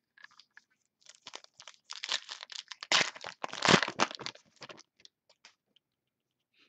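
Wrapper of a trading-card pack crinkling and tearing as it is opened by hand: a run of crackly rustles, loudest about halfway through, that fades out near the end.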